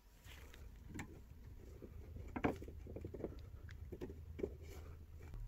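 Steel frame rods being handled and pushed into plastic corner connectors: a series of irregular clicks and knocks, the loudest about two and a half seconds in, over a low steady hum.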